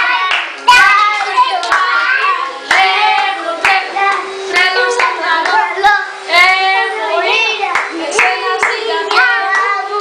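Children's voices singing a song with hands clapping along in time, about one clap a second.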